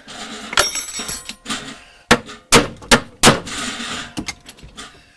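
Metal clanking: a run of sharp metallic knocks and clinks, several loud ones close together in the middle, some with a brief ring, as tools and metal parts are worked at a car door hinge.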